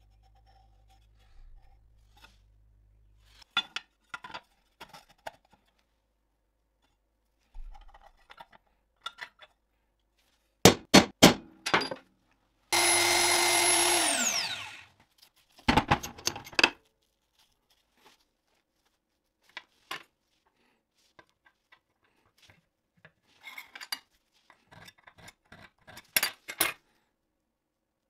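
Metalworking handling sounds: a pen scratching on a grinder guard, then scattered clicks and three sharp metal knocks. Next comes about two seconds of a drill press running, which spins down with a falling whine, followed by more knocks and the handling of small metal parts.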